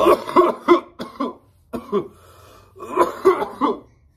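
A man coughing hard in three bouts, harsh chesty coughs after a long hit from a disposable cannabis vape pen.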